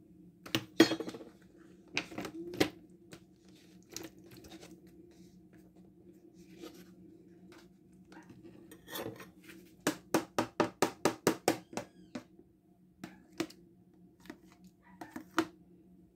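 Cutlery clinking and scraping against a plastic tub and baking tray as sliced beetroot is scraped out, in scattered knocks. About ten seconds in comes a quick run of about ten taps, roughly five a second, as the spoon is knocked to shake the beetroot loose.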